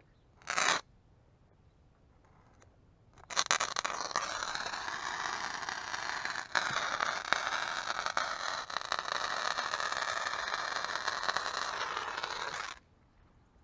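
A small slider firework burning on concrete with a steady hiss for about nine and a half seconds, starting a few seconds in and cutting off abruptly near the end. A brief hiss sounds about half a second in.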